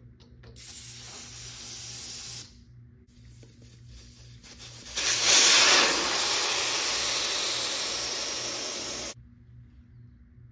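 Pressurised spray hissing in two long bursts: a shorter one, then a louder one about six seconds long that slowly fades and cuts off sharply.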